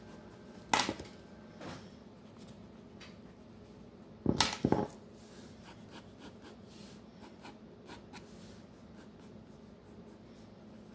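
Pencil scratching faintly on sketchbook paper while drawing, broken by sharp knocks: one just under a second in and a louder double knock about four and a half seconds in.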